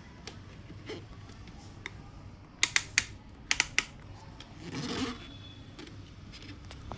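Hard plastic clicks from mixer grinder jars and lids being handled: two quick groups of about three sharp clicks near the middle, then a brief rustle about five seconds in.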